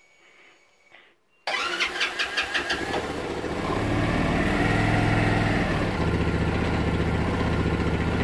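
Microsquirt fuel-injected Boom Vader 125's single-cylinder four-stroke engine starting about a second and a half in. It fires unevenly at first, then catches and settles into a steady idle that rises a little before easing back.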